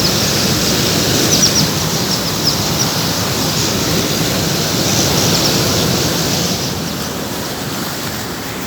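Steady, loud rushing noise with a few short, high bird chirps in the first half. The noise eases off a little over the last two seconds.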